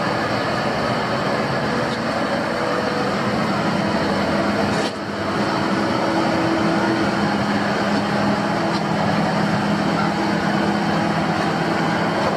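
Volvo FH16 750 log truck's 16-litre straight-six diesel running steadily while it drives the hydraulics of its loading crane, which is being folded away. There is a short drop in level about five seconds in, then a steady hum carries on.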